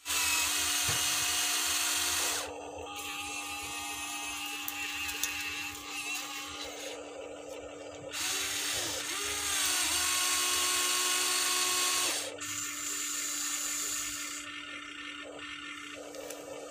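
Electric motors and gearboxes of a Huina 1593 RC excavator whirring as the boom, arm and bucket move through sand. It is louder for about the first two seconds and again for about four seconds in the middle, over a steady hum.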